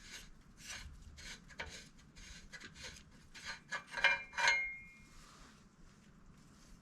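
Stock narrowband O2 sensor being unscrewed by hand from the exhaust, its threads rasping in short strokes about three times a second. About four seconds in come a few louder metallic clinks with a brief ring, then it goes quiet.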